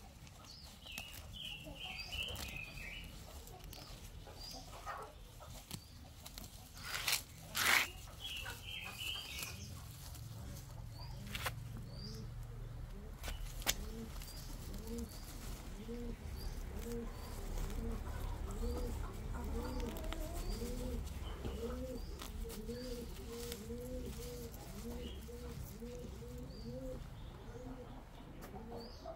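Birds: a few short high chirps in the first ten seconds, a brief loud rustle about a quarter of the way in, then a pigeon cooing over and over, about two low coos a second, through the second half.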